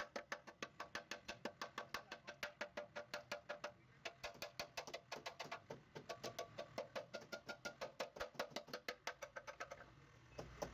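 Faint background music: a quick, steady run of short plucked or tapped notes, about five a second, pausing briefly twice.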